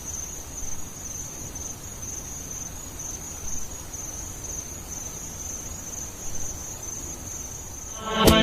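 Insects trilling: a steady, high-pitched, finely pulsing trill over a faint low hum. Music starts with sharp beats just before the end.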